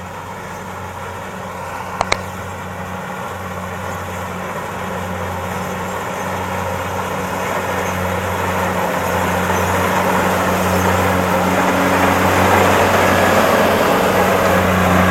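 Kubota DC-60 rice combine harvester running with a steady diesel engine hum and threshing machinery noise, growing louder as it comes closer. A single sharp click about two seconds in.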